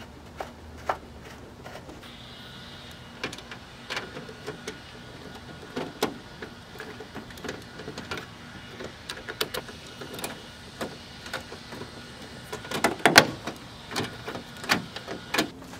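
Plastic clicks, taps and knocks of a car trunk-lid trim panel and its clips being handled and pressed back into place, irregular throughout, with a cluster of louder knocks about 13 seconds in.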